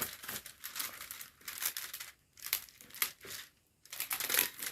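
Small plastic drill bags of resin diamond-painting drills crinkling as they are handled, in irregular crackles with a couple of brief pauses.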